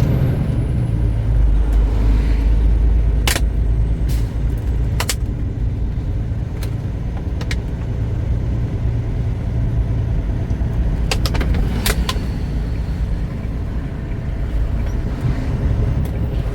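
Semi truck engine and road noise heard inside the cab, a steady low drone, with a few sharp clicks at irregular intervals.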